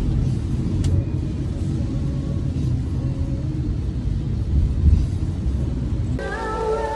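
Steady low rumble of a car driving, heard from inside the cabin. Music comes in near the end.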